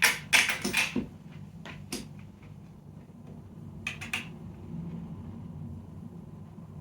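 Parts of a 3D printer clicking and knocking as they are handled and fitted together during assembly: a cluster of sharp clicks in the first second, a single click about two seconds in, and a quick run of clicks around four seconds in.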